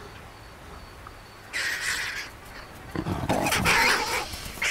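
Lions snarling in short harsh bursts, the loudest and deepest about three seconds in: a lion warning off vultures from its kill.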